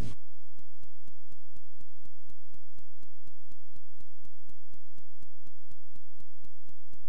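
A steady low hum with an even ticking over it, about five ticks a second, holding one level throughout: a clock-like sound effect on the animation's soundtrack, with no tuning-fork tone to be heard.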